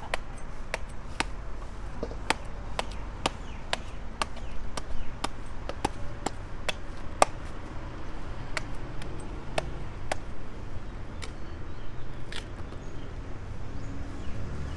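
A knife hacking open palmyra palm fruit: a run of sharp, uneven chopping strikes that thins out and stops about twelve seconds in.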